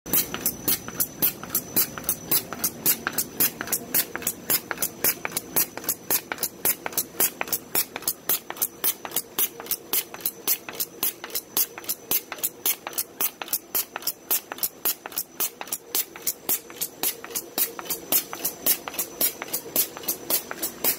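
B & R Moll friction feeder line running, feeding gift-box mailers past a fugitive-glue applicator: a sharp, even click about four to five times a second over a steady machine hum.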